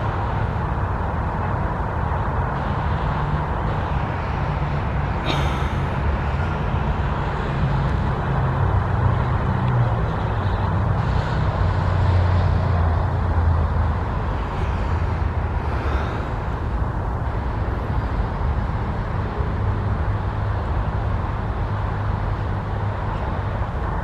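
Steady road-traffic noise with the low hum of vehicle engines, its pitch sinking slowly, and a faint click about five seconds in.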